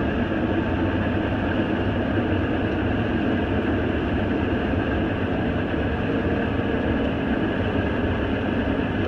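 Combine harvester running steadily while cutting wheat: an even machinery drone that does not change.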